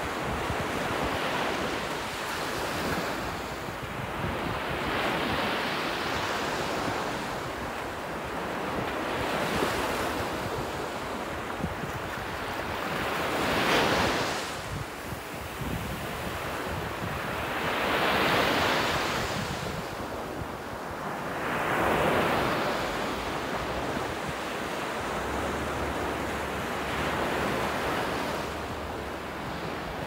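Small waves breaking and washing up a sandy, shell-strewn shore, with wind buffeting the microphone. The surf swells and fades every few seconds, loudest about halfway through and in two more surges a few seconds later.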